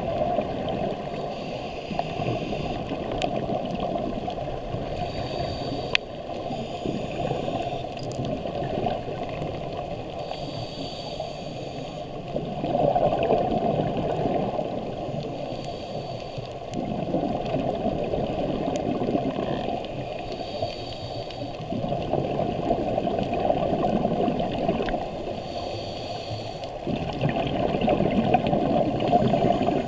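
Scuba breathing heard underwater through a camera housing: a muffled bubbling rush of exhaled air that swells and eases, with a brief hiss of inhalation about every five seconds.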